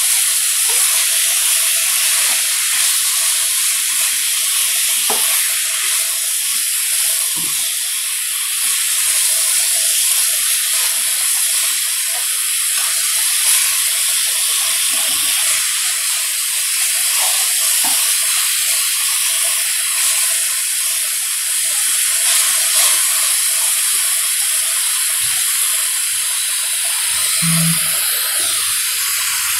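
Beef rib meat sizzling steadily on a hot iron griddle plate, a constant loud hiss, with a few soft low knocks near the end.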